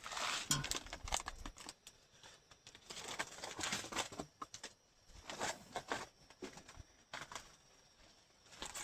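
Plastic bag of freeze-dried vegetables crinkling and rustling as it is handled and opened, with scattered light clicks and taps, quieter near the end.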